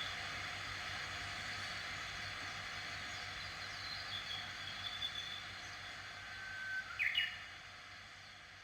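Wild birds calling over a steady outdoor background hiss: thin whistled notes a few seconds in, then a short held whistle and a sharp chirp about seven seconds in. Everything fades down near the end.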